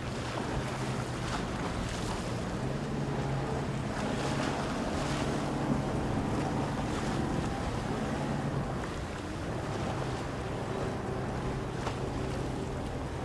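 Motorboat engines droning steadily as boats run past in the channel, louder for a few seconds mid-way, with the rush of the wake and wind buffeting the microphone.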